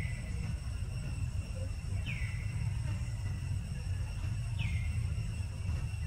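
Outdoor ambience: a steady low rumble with a thin steady high-pitched hum over it, and short chirps that fall in pitch, one at the start and two more about two and a half seconds apart.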